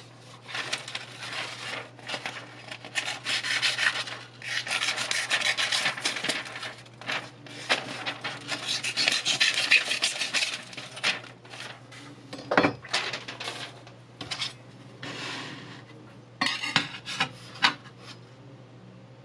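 Steel kitchen knife blade drawn back and forth over sandpaper on a sharpening block: a run of quick gritty rasping strokes. A single sharp tap comes past the middle, and a few quick clicks come near the end, over a low steady hum.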